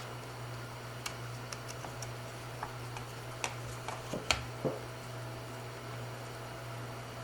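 Light clicks and taps of small plastic and metal parts being handled and fitted together as a circuit board is lined up with the tabs of its metal cage, about a dozen in the first five seconds, the loudest a little past four seconds in. A steady low hum runs underneath.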